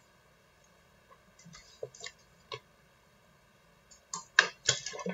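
Thin plastic water bottle handled and drunk from: a few faint scattered clicks, then about four seconds in a cluster of louder sharp crackles and clicks from the plastic.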